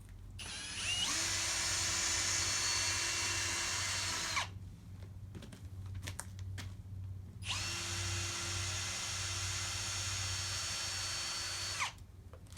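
Cordless power drill running twice, about four seconds each time, with a steady whine that rises as it spins up and drops as it stops, typical of backing screws out of a plywood step ramp.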